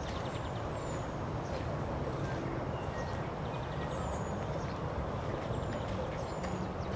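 Garden ambience: a steady low rumble, with small birds giving short high chirps and quick twitters every second or so.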